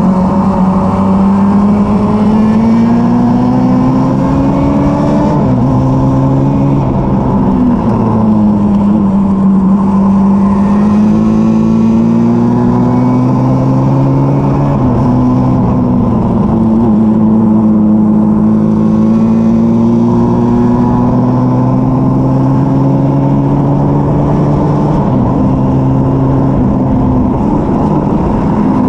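Formula Junior race car's engine at full song, heard onboard. Its note climbs steadily under acceleration and drops sharply at each gear change, about four times, with wind and road noise underneath.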